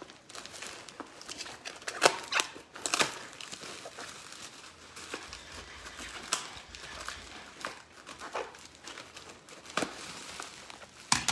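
A plastic-wrapped cardboard parcel being opened by hand: the plastic wrapping crinkles and the packing tape and cardboard flaps tear, in irregular crackles with sharper rips scattered through.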